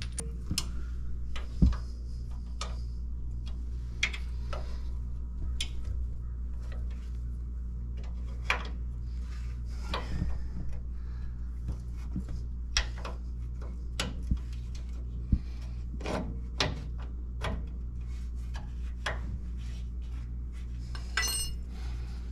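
Hand tools and parts clinking, knocking and rubbing against the truck's front suspension as a new front shock absorber is fitted at its lower mount, in scattered irregular knocks with a brief ringing metallic clatter near the end, over a steady low hum.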